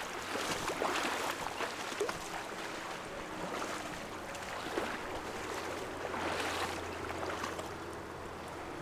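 Steady rush of fast-flowing river water, with a few brief splashes.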